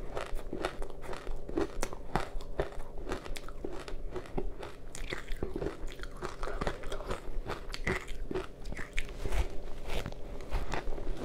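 Soft powdery ice coated in matcha green tea powder being bitten and chewed close to the microphone: a dense run of irregular, crisp crunches with mouthful chewing between bites.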